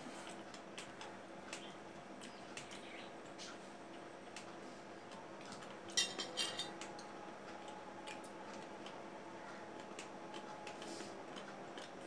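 Light clinks and taps of fingers and cut fruit against ceramic plates, with a louder brief clatter about six seconds in.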